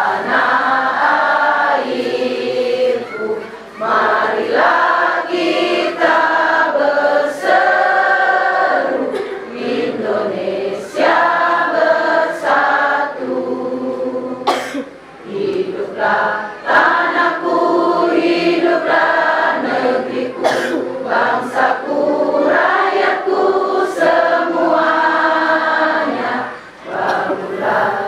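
A group of voices singing together in a chant-like song, phrases of held notes with short breaks between them.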